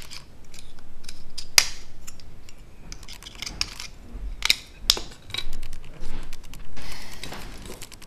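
Plastic dot-matrix printer ribbon cassette handled and pried open by hand: a string of sharp plastic clicks and snaps, the loudest about one and a half seconds in, with a stretch of sliding and rustling near the end.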